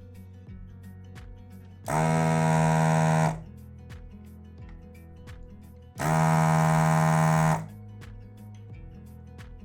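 Electric desoldering gun's vacuum pump buzzing twice, each burst about a second and a half long and cutting off sharply, as solder is sucked out of keyboard switch holes. Background music with a faint ticking beat between the bursts.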